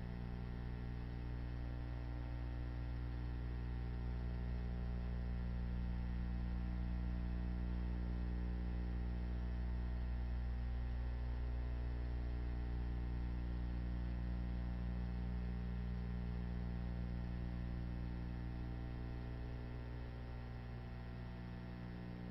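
Steady electrical mains hum, a low drone with a stack of buzzing higher tones above it and a faint hiss, unchanging throughout; no sound from the cats is heard.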